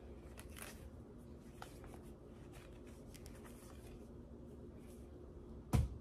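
Soft rustling and light clicks of dog toys (a plush toy, tennis balls and socks) being handled, over a faint steady hum; a single dull thump near the end is the loudest sound.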